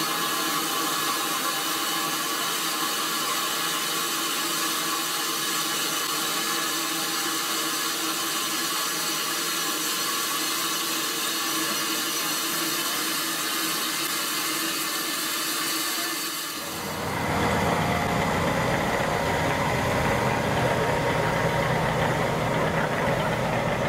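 Steady hiss of steam leaking around the cylinders of a saddle-tank steam locomotive standing at rest. About two-thirds of the way in it cuts to the low, steady running of a small diesel shunting locomotive's engine idling.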